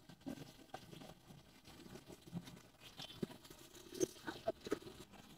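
Quiet background with a few faint, scattered clicks and taps, more of them from about three seconds in.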